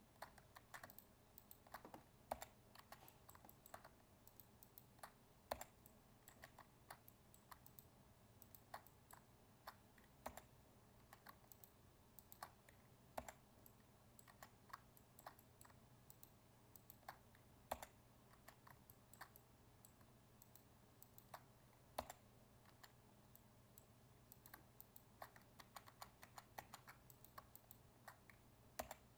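Faint computer keyboard and mouse clicking: scattered, irregular taps over a steady low hum.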